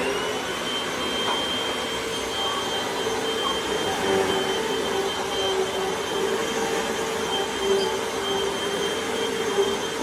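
Hoover WindTunnel Rewind upright vacuum cleaner running, pretty loud. Its motor whine climbs to full speed right at the start and then holds steady over a rush of suction air, with a high whine and a lower hum.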